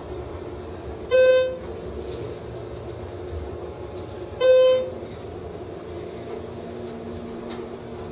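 Schindler electric elevator car travelling up with a steady hum, its floor chime sounding a short electronic beep twice, about a second in and again a little after four seconds, each beep marking a floor as the car rises from 2 to 4.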